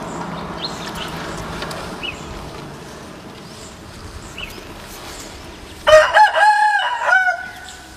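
A rooster crowing once: a loud call of about a second and a half that starts about six seconds in. Before it there is a steady background hiss with a few faint chirps.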